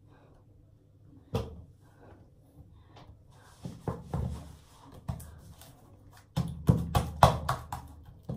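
Irregular knocks and clatter of objects being handled, sparse at first and coming thick and loud in the last two seconds.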